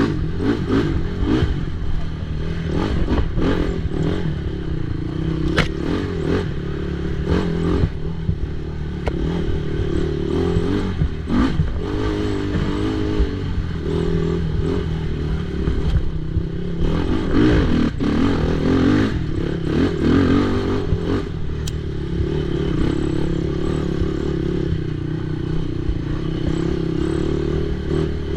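Race ATV engine running hard, its pitch rising and falling with the throttle, over frequent clattering knocks and scrapes from the machine.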